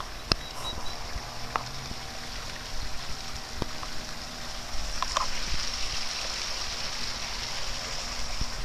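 Water running over a small rock waterfall, a steady splashing hiss that grows louder about halfway through, with a few light knocks.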